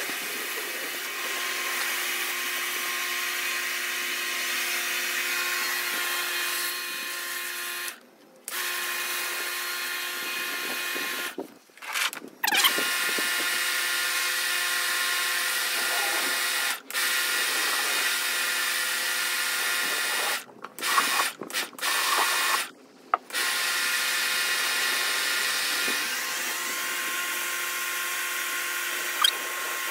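Kärcher pressure washer running, its pump motor whining steadily under the hiss of the water jet on concrete. It cuts out briefly several times in the middle and starts again.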